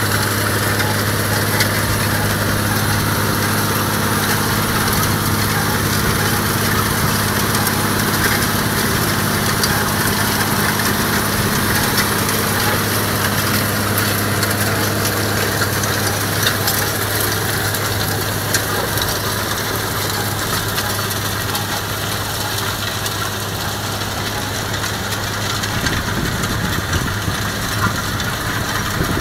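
Case IH Quadtrac 450 tracked tractor's diesel engine running steadily under load as it pulls a cultivator through stubble, heard from inside a car driving alongside, as a constant low drone.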